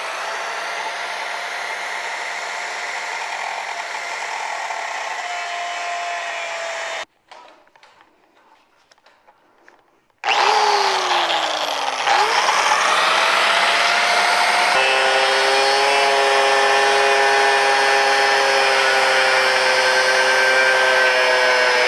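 Handheld angle grinder cutting into the steel frame rail of a 1972 Chevrolet C10, a steady high whine. It stops about seven seconds in, starts again about three seconds later and runs on steadily, cutting with sparks flying.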